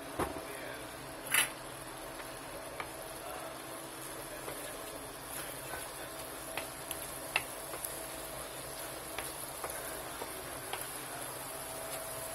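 Mushrooms and mixed vegetables sizzling and simmering in butter and garlic in a wok, with scattered small pops and crackles. There is one sharp knock about a second and a half in.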